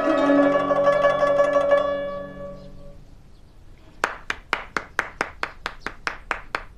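Guzheng (Chinese plucked zither) playing the last notes of a phrase, which ring on and fade away. About four seconds in, one person starts clapping slowly and evenly, about four claps a second.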